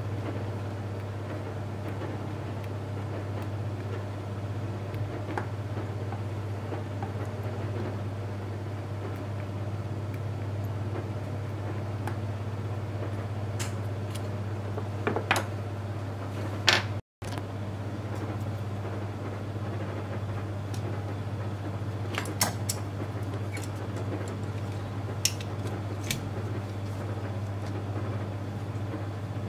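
A steady low electrical hum, with a handful of sharp clicks and taps from small metal parts and probe leads being handled on the bench, in two clusters about halfway through and again later on.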